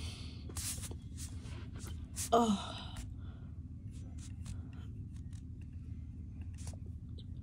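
A person gasps and breathes out sharply, then gives one short groan that falls in pitch about two seconds in, reacting to a losing chess position. A few light laptop trackpad clicks follow over a steady low hum.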